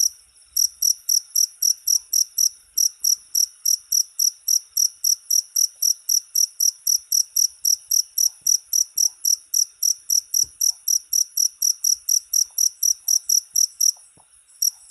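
Cricket chirping in a fast, even series of high-pitched chirps, about four a second, stopping briefly just at the start and again near the end.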